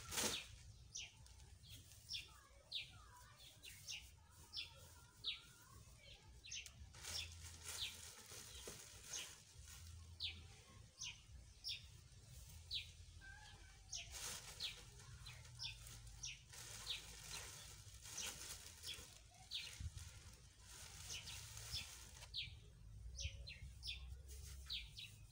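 Small birds chirping: short, high, quickly falling chirps repeating every second or so, over a faint low rumble.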